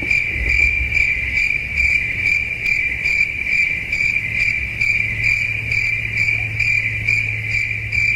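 Crickets chirping in a steady high trill that pulses two to three times a second: the stock 'crickets' meme sound effect for an awkward silence.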